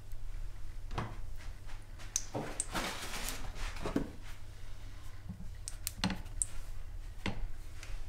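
Light clicks and knocks of kitchen utensils and bowls being handled at the stovetop, a scattering of short taps with a busier patch about three seconds in, over a steady low hum.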